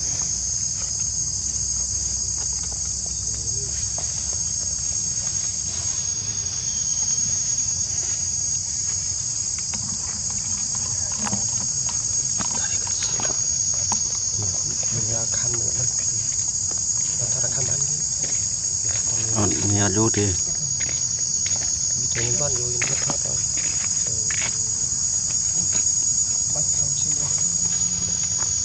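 Steady, high-pitched chorus of insects. Faint voices come and go in the middle.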